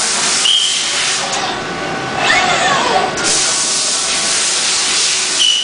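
Machinery in a robot-tended CNC lathe cell: long stretches of loud hissing like compressed air or spray, broken briefly a few times, with a short high tone twice and a whine that falls in pitch about two and a half seconds in.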